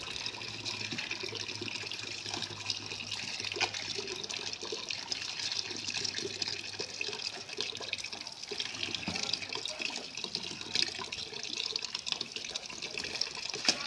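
Grape juice trickling and splashing into a bucket as it runs from a trodden sack of crushed grapes, a steady watery hiss with a few small knocks.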